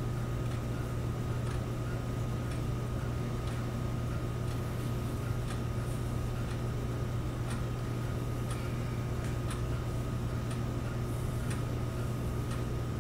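8mm movie projector running: a steady low motor hum with faint, slightly irregular ticks about twice a second.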